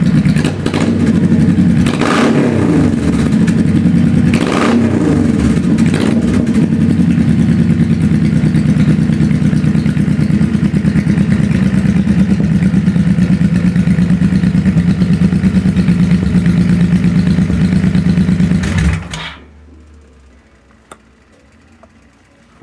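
2003 Honda Shadow Sabre 1100's V-twin running through a full Dubb aftermarket exhaust, jetted to match. The engine is blipped twice, about two seconds apart. About nineteen seconds in, the engine is switched off and stops suddenly, leaving a faint hum with a few small ticks.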